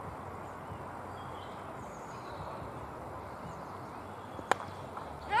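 A single sharp crack of a cricket bat striking the ball, about four and a half seconds in, over steady open-air background noise.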